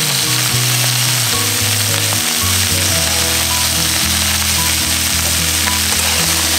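Diced vegetables frying in an aluminium kadai, a steady sizzle throughout.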